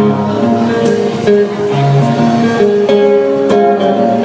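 Acoustic guitar strumming chords, played live as the instrumental lead-in to a song.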